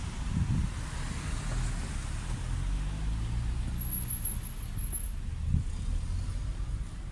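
Low rumble of car traffic in a narrow street, with a steady engine hum midway through and a few soft low thumps.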